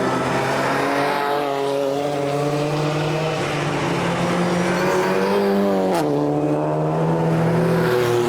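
Race car engines accelerating past on track. The engine note climbs steadily, drops sharply about six seconds in at an upshift, then holds.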